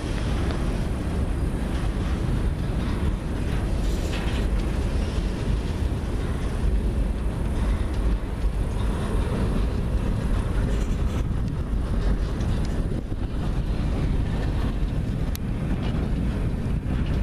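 Freight cars rolling past close by: a steady rumble of steel wheels on the rails, heaviest in the low end.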